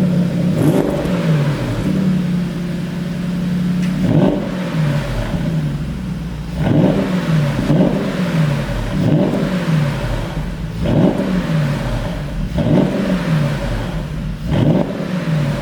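2020 Porsche Panamera GTS's twin-turbo V8 revved in quick repeated blips, the pitch falling away after each one, with sharp cracks from the exhaust of a pop-and-bang tune.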